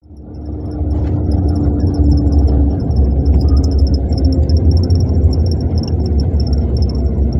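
Steady low rumble of a long-distance coach's engine and tyres, heard from inside the passenger cabin while it cruises on the highway, with a faint, high-pitched squeak chirping on and off over it.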